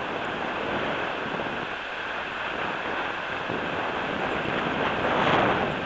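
Airflow rushing over the microphone during a tandem paraglider flight, a steady rush that swells briefly near the end.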